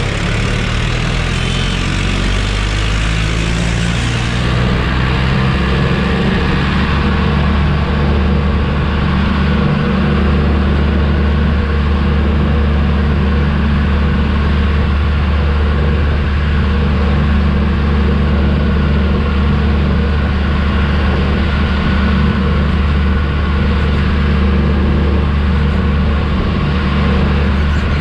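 Mahindra Arjun 555 tractor's diesel engine under way at full throttle. Its pitch climbs over the first few seconds as it picks up speed, then holds steady.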